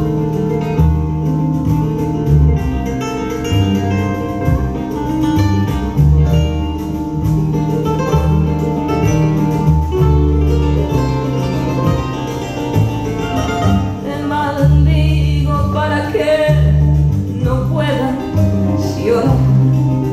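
Recorded song with guitar over a deep bass line; a woman's voice comes in singing about two-thirds of the way through.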